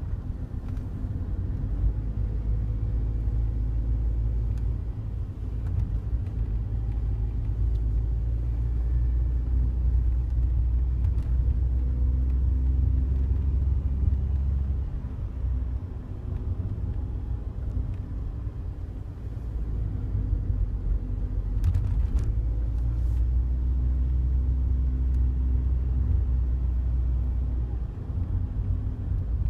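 Daihatsu Wake's cabin while driving: a steady low road and engine rumble, with a few sharp clicks from the passenger-side dashboard, most clearly twice near the end. This is the rattle that comes from the dashboard in front of the passenger seat and grows louder with vibration.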